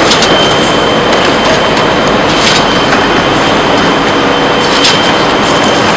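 A carton-forming packaging machine and the factory machinery around it running with a loud, steady mechanical din. A thin steady whine sits over it, and three short hisses come about two and a half seconds apart.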